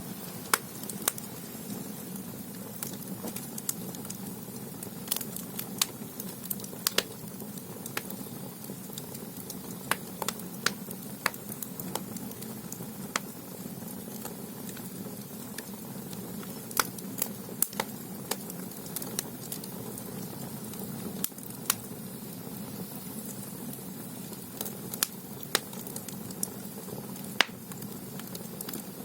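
Firewood burning in the stoke-hole firebox of a Korean ondol underfloor-heating room. It gives off irregular sharp pops and crackles over a steady low rumble of the fire.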